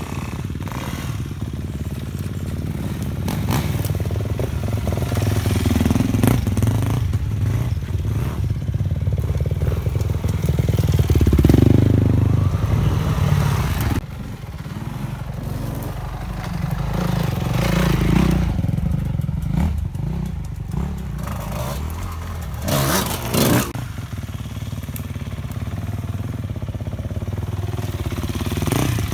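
Dirt bike engines running and revving as the bikes climb, swelling louder twice as they pull up the slope. A couple of short, sharp louder bursts come about two thirds of the way through.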